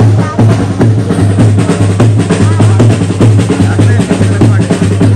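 Loud drumming with a steady, deep beat and dense snare-like strokes.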